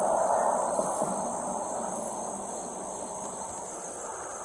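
Insects chirping in a steady, high-pitched trill, over a rushing noise that fades away over the first two seconds or so.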